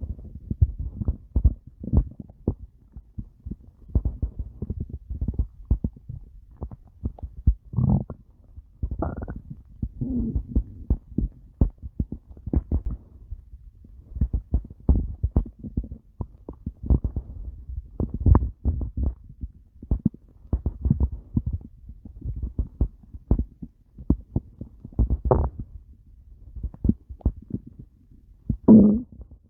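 A stomach growling and gurgling: a dense, irregular run of short, low bubbling pops, broken now and then by a longer, drawn-out gurgle.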